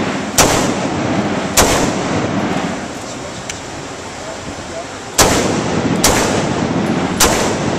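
Short-barrelled AR-15 carbine (11.5-inch barrel, muzzle brake) firing five single shots, each trailing off in an echo. Two come about a second apart, then after a pause of several seconds three more follow about a second apart.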